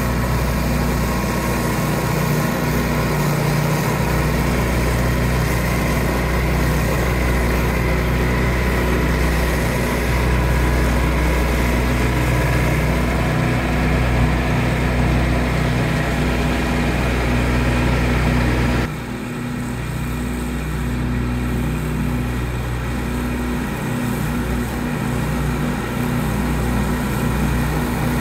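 Compact diesel tractor running steadily, driving a TMG 60-inch offset flail mower whose rotor is spinning as it cuts grass. About nineteen seconds in, the sound turns slightly quieter and duller.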